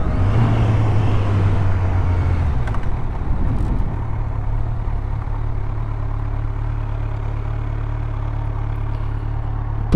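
Kawasaki Z900's inline-four engine running as the motorcycle slows to pull over, with wind rush fading over the first few seconds, then settling into a steady idle.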